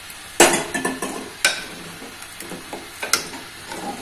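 A spoon stirring khichdi in a metal pressure cooker pot, with a few sharp, briefly ringing clinks of metal against metal over a faint sizzle.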